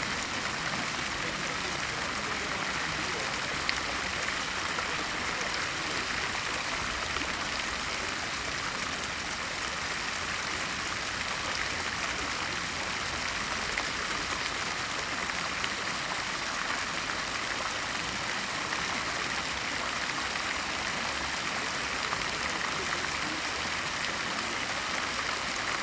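Street fountain's water falling and splashing in a steady, even hiss.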